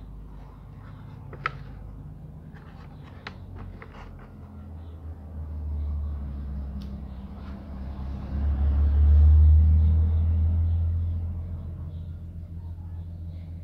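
A low, deep rumble that swells from about five seconds in, is loudest a few seconds later, then fades away. Before it, a few light clicks and crinkles of a plastic toy blister pack being handled.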